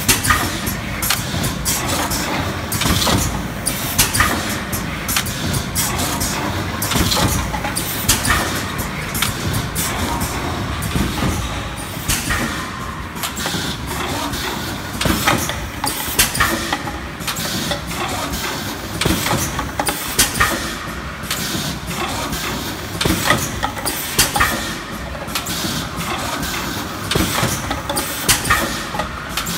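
OUGE OGB-4S PET bottle blowing machine running: a steady mechanical din with many sharp, irregular clacks and knocks from its moving parts.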